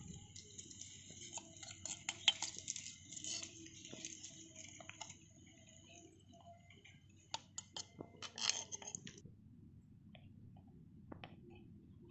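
A metal spoon scraping and clinking against small clay pots while scooping soft cooked vermicelli, with faint, quick clicks and scrapes. The clicks come thickest in the first few seconds and again about seven to nine seconds in.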